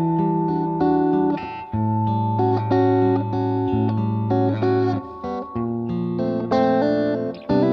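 Background music: a plucked guitar tune with a bass line and a held high note.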